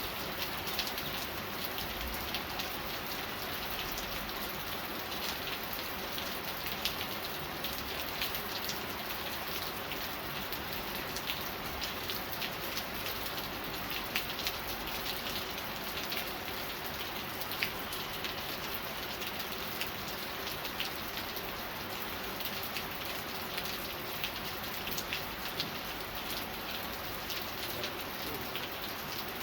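Steady rain falling on a surface, an even hiss with many separate drop impacts pattering over it.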